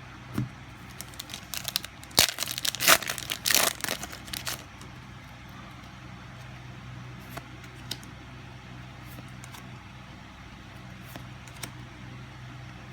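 Crinkling and rustling of trading-card booster-pack wrappers and card packaging being handled, in a burst of about three seconds, then a few light taps and clicks over a steady low hum.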